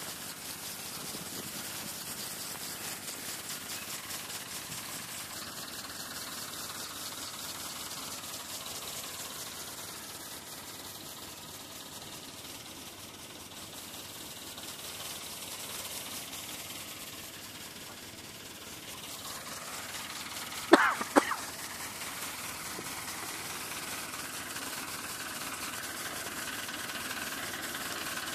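Farm tractor engine running steadily under a constant hiss, with a faint engine tone coming through more clearly near the end. Two short, sharp, loud noises come close together about two-thirds of the way through.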